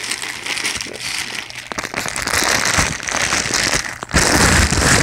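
Plastic poly mailer bag crinkling and rustling as a hand rummages inside it, with a louder, heavier rustle near the end.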